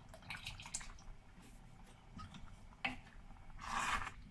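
Faint liquid drips and light clicks from a pot of rice and milk, with a short louder rush of noise about three and a half seconds in.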